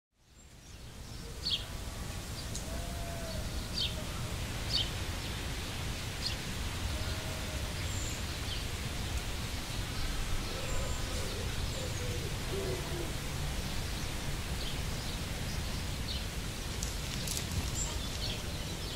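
Birds calling outdoors: scattered short high chirps and a few lower calls over a steady low background noise, fading in over the first second.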